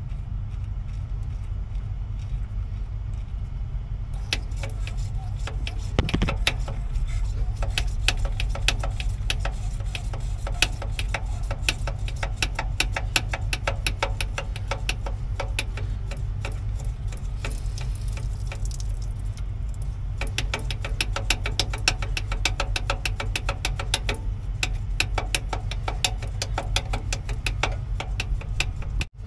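Hand fuel priming pump on a Caterpillar D7F dozer's diesel engine being worked to bleed air from a fuel system that ran dry, making rapid clicking that starts about four seconds in. A steady low hum runs underneath.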